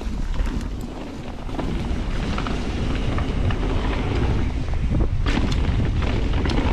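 Wind rushing over the camera microphone as a mountain bike rolls fast down a dirt trail, with tyre noise and scattered clicks and rattles; it gets louder about two seconds in.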